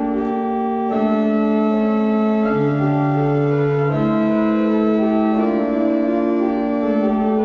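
Church organ playing slow, held chords that change about every second or so.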